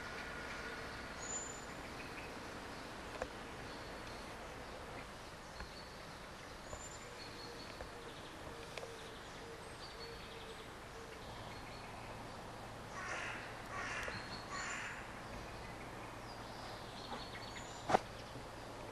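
Birds calling outdoors: faint short high chirps throughout, and three louder calls in quick succession about thirteen seconds in. A single sharp click near the end.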